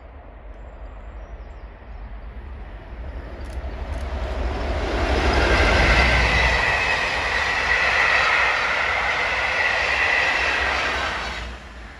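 Class 40 diesel locomotive passing at the head of a train of coaches, with a Class 90 electric on the rear. The rumble grows as it approaches and is loudest about halfway through, where a steady high ringing joins it and runs on under the passing coaches. The noise drops away suddenly near the end as the rear locomotive clears.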